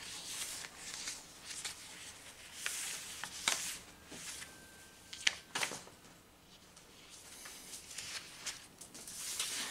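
Book pages being leafed through: soft paper rustling with a few light clicks and taps, the sharpest about three and a half and five and a half seconds in.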